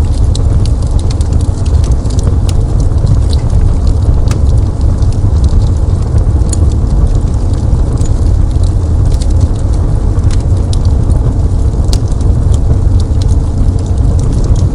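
Fireplace fire burning: a loud, steady low rumble with scattered sharp crackles and pops at irregular intervals.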